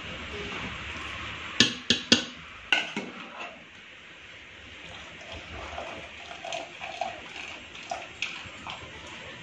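Metal slotted ladle knocking against the rim of an aluminium pressure cooker: four sharp clinks within about a second and a half, as par-cooked rice is tapped off it into the pot. Softer scattered clatter follows as the rice is spread.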